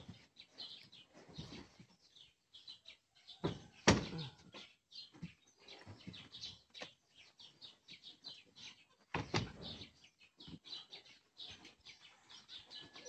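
Heavy cardboard boxes of ceramic tiles being set down and slid on a pickup truck's ribbed bed, with a loud knock about four seconds in and another about nine seconds in. Small birds chirp throughout.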